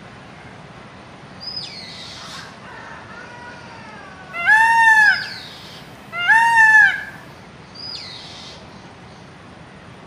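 Indian peafowl calling: two loud, ringing, arching cries in quick succession midway through. Fainter high bird calls come before and after, over a steady hiss of outdoor background.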